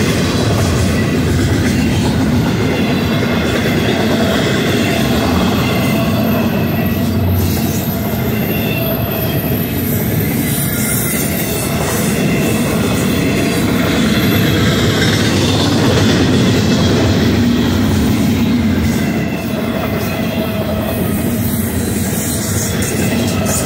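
Double-stack intermodal well cars rolling past close by: a steady, loud rumble of steel wheels on rail, with a thin high-pitched wheel squeal wavering in and out.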